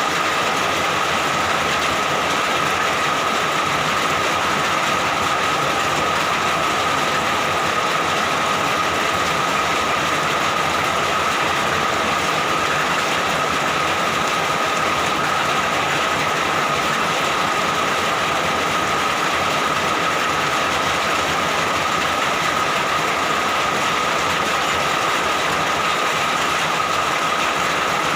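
Steady rain falling, an even, unbroken hiss of drops with a faint steady high tone running through it.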